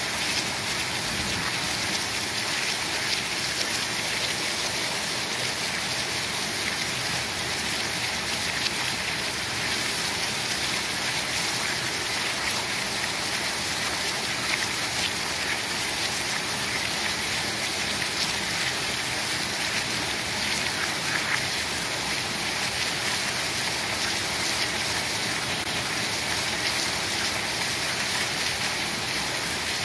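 Heavy rain pouring steadily, an even, unbroken hiss of falling drops.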